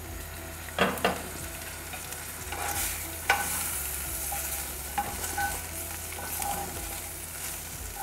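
Marinated chicken pieces sizzling in a hot cast-iron pan, with a spatula knocking and scraping against the pan a few times, sharpest about a second in and again near three seconds.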